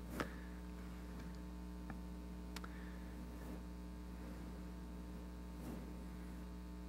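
Steady electrical mains hum from the microphone and sound system, with a couple of faint clicks.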